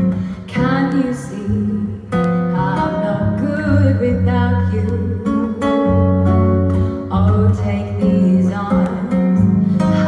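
Live acoustic guitar playing a jazz standard in a bossa nova style, with a sung melody over steady bass notes.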